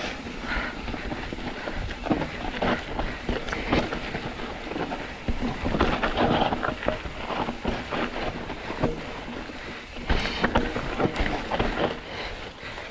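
Mountain bike rattling and knocking over a rocky trail, with irregular sharp jolts and a low wind rumble on the microphone.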